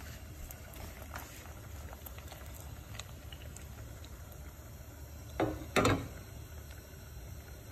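Sugar syrup boiling in a pan on a gas stove, a steady bubbling with scattered small pops. About two-thirds of the way in come two sharp knocks close together.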